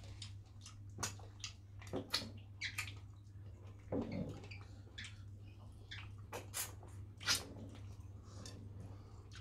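Close-up mukbang eating sounds from fish in pepper soup eaten with the fingers: irregular sharp mouth smacks, chewing and finger-sucking clicks, a couple of them a second, over a low steady hum.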